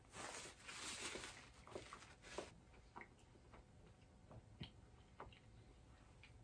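Paper napkin rustling for about the first two and a half seconds, then faint scattered clicks of chewing with the mouth closed.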